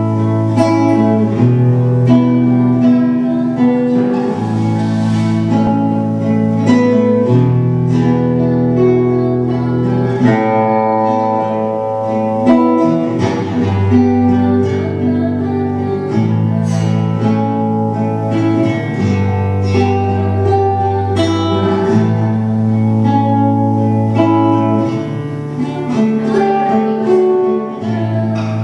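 Acoustic guitar playing a chord progression, its bass note moving every second or two.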